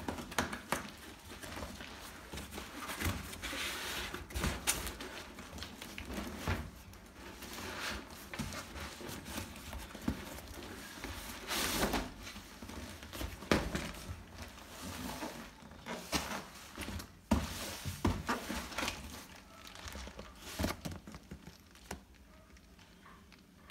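Cardboard boxes being handled and unpacked: cardboard rubbing, scraping and crinkling, with irregular knocks and thumps as a taped inner box is slid out of its outer carton.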